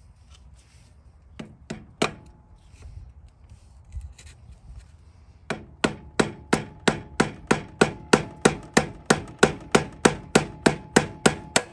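Hammer blows on a pipe driver, seating a new axle seal in a garden tractor's transaxle: a few light taps, then about halfway through a steady run of strikes at roughly four a second, each with a faint ring. The seal keeps going into its bore crooked.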